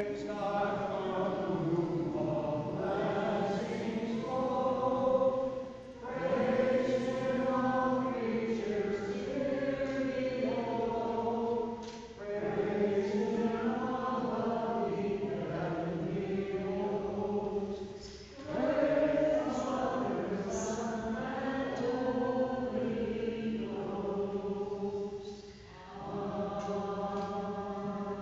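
A church choir singing a hymn in sustained phrases of about six seconds, with a short break for breath between phrases.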